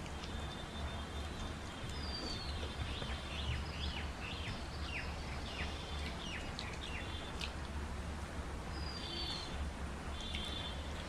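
Small birds calling: a falling whistle about two seconds in, a quick run of short downward chirps over the next few seconds, and more whistles and chirps near the end. A steady low hum runs underneath.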